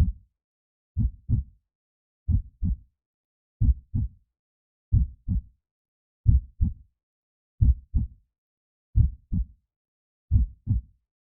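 Heartbeat sounds, a steady slow lub-dub: pairs of short low thumps about every 1.35 seconds, with silence between the beats.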